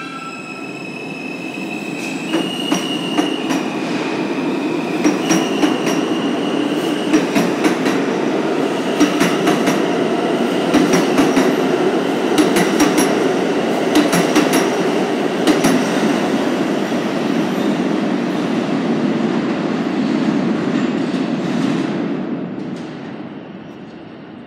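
R160B subway train pulling out of the station: a stepped electric propulsion whine as it starts, then the cars' wheels rumble past with groups of sharp clicks over the rail joints about every two seconds. The sound fades near the end as the last car leaves.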